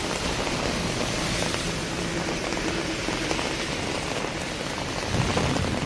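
Steady hiss of rain and car tyres on a wet road, with a faint low engine hum in the middle.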